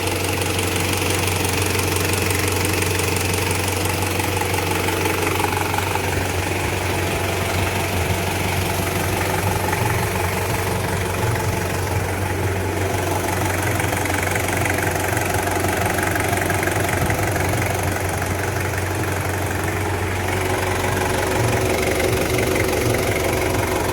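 Toyota 1KZ-TE 3.0-litre four-cylinder turbodiesel, warmed up and freshly rebuilt, running steadily without the piston knock it had before the overhaul.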